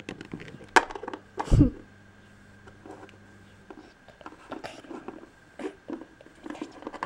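Littlest Pet Shop plastic toy figures handled on a tabletop: a sharp click, a heavier thump about a second and a half in, then a scatter of light taps and clicks as the figures are picked up and set down.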